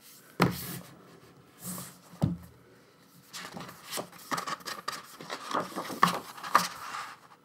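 Hands handling a music album's packaging and contents: two sharp knocks within the first few seconds, then about four seconds of quick, irregular rustling and clicking.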